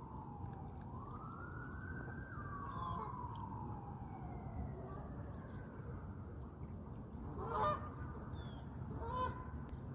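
Canada goose honking twice, the louder call about seven and a half seconds in and a second about nine seconds in. Before that a fainter siren wails, its pitch falling, rising and falling again over the first five seconds.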